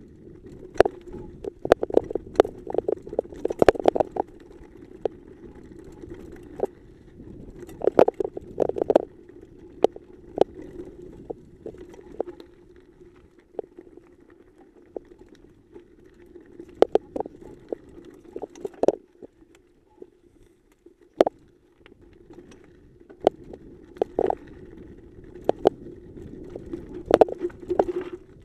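Mountain bike rolling fast over a rough, rocky dirt trail: a steady low rolling hum with clusters of sharp knocks and rattles as the bike hits bumps and rocks.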